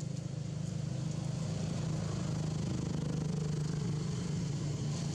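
An engine running steadily, a low drone that grows slightly louder over the first couple of seconds.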